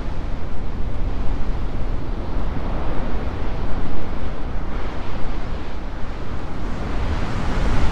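Heavy ocean surf breaking against a rocky shore: a steady roar with a deep rumble, swelling as a big wave breaks about halfway through and again near the end.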